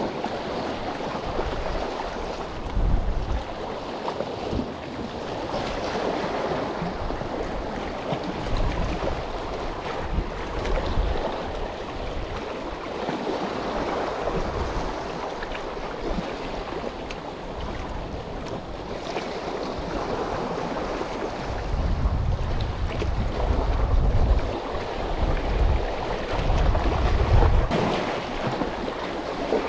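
Sea waves washing and splashing among concrete tetrapod breakwater blocks, with wind buffeting the microphone in gusts that are heaviest near the end.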